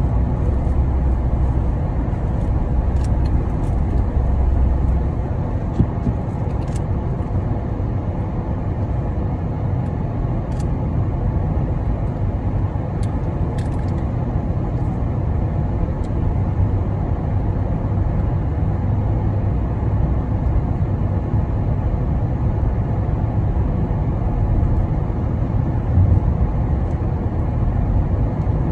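Steady road noise of a moving car at cruising speed: a low rumble of engine and tyres on asphalt, with a few faint ticks in the first half.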